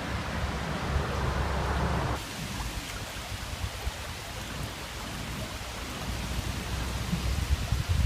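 Steady hiss of a river's running water under a low rumble. The rumble drops away sharply about two seconds in, builds again, and ends in a loud thump.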